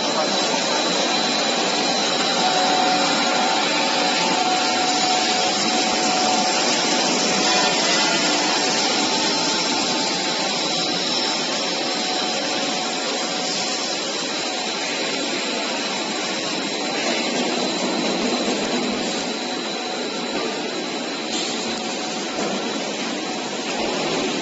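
A machine running steadily: an even, loud rushing noise with a faint steady whine in it.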